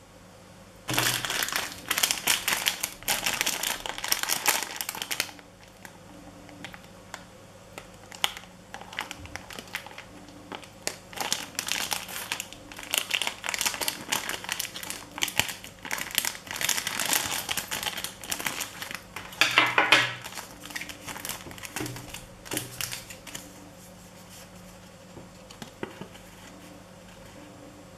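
Clear plastic packaging sleeve crinkling as it is handled and opened by hand, in irregular bursts. It starts about a second in and is loudest just before the twenty-second mark. Near the end a folded paper instruction leaflet gives softer rustles as it is unfolded.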